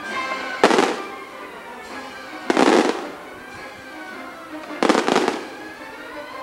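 Fireworks going off: three loud bursts about two seconds apart, each cracking sharply and then hissing for about half a second, over the show's soundtrack music playing underneath.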